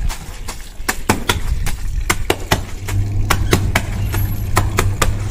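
A wet cloth being scrubbed and rubbed by hand against a concrete floor: a quick, irregular run of sharp wet slaps and squelches, about three or four a second. A steady low hum comes in about three seconds in.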